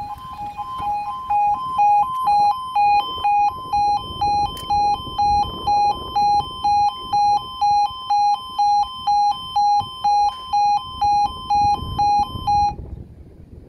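Railway level crossing audible warning alarm sounding a two-tone yodel, alternating a low and a high tone about twice a second, then cutting off about a second before the end.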